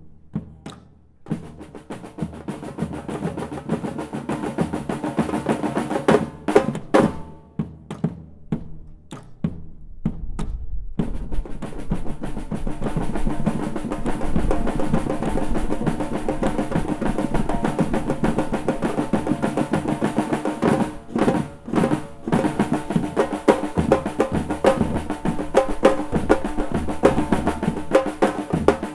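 Drum ensemble of snare drums and bass drums playing a funk rhythm. Scattered strokes come first, then the full group comes in with deep bass drums about eleven seconds in. It breaks off briefly at about twenty-one seconds and picks the groove up again.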